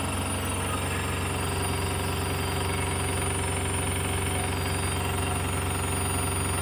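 Samsung washing machine running its spin cycle with a steady low hum and a fast rattling buzz, the abnormal noise it makes while spinning.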